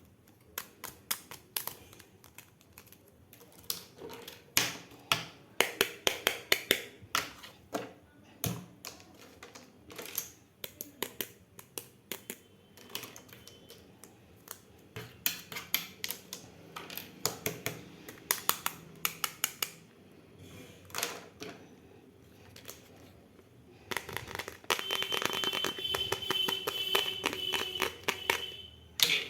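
Small plastic miniature toy pieces being handled, with irregular sharp clicks and taps as they are picked up, set down and fitted together. About five seconds before the end, a denser stretch of rustling and scraping runs for several seconds.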